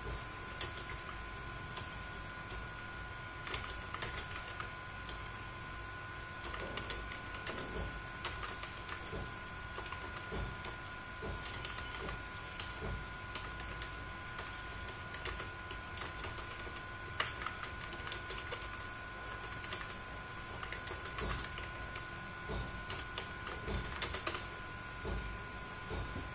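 Typing on a computer keyboard: irregular runs of keystrokes with occasional harder key hits, over a steady faint high whine.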